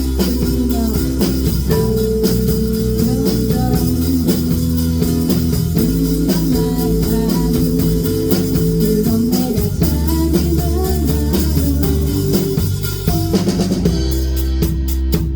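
Live band playing an instrumental passage with guitar and drum kit, no singing. Near the end the drums come through as sharp, evenly spaced hits.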